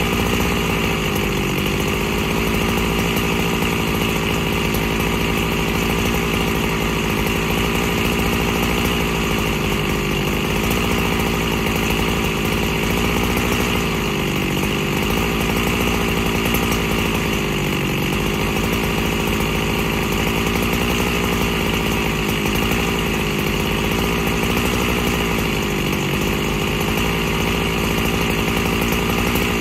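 Husqvarna 365 Special chainsaw's freshly rebuilt two-stroke engine idling steadily with no one touching the throttle. Its idle speed sags and recovers slightly every few seconds.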